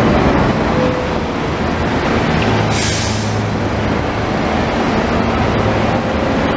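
Heavy-vehicle engine running steadily, with a short hiss of released air about three seconds in.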